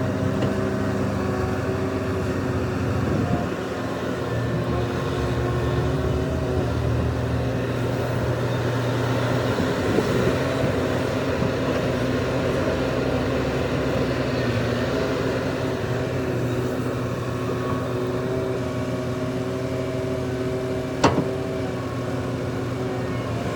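Heavy diesel earthmoving machinery, an excavator and dump trucks, running steadily with a constant engine drone. There is one sharp metallic knock near the end.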